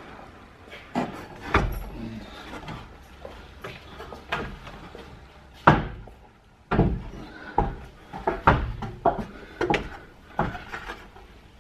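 Folding attic ladder being opened out and climbed: a series of knocks and thuds, then footfalls on its steps about every two-thirds of a second in the second half.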